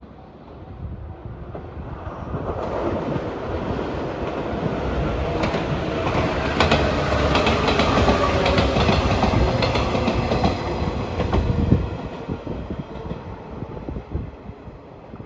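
JR 115 series electric train passing close by: the rumble builds, its wheels clack rapidly over the rail joints as it goes past, and a tone falls in pitch. The sound then fades as the train pulls away.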